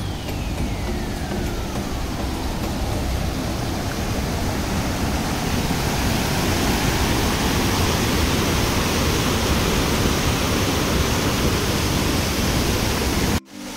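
Dudhsagar Falls' water crashing down: a steady, even roar that grows a little louder over the first several seconds and cuts off abruptly near the end. A single falling tone glides down and fades out in the first two seconds.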